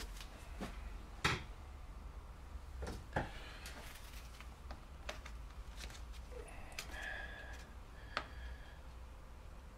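Hands refitting hoses and electrical plugs in a car engine bay: a few scattered sharp clicks and knocks of plastic parts being handled and pressed on, the loudest about a second in.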